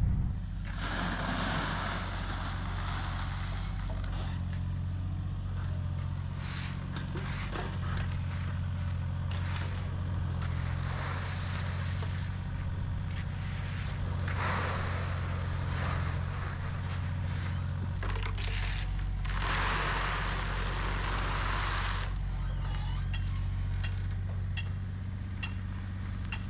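Crushed stone gravel being tipped from wheelbarrows and raked out, heard as several bursts of grinding noise a second or two long, over the steady low hum of a diesel engine running.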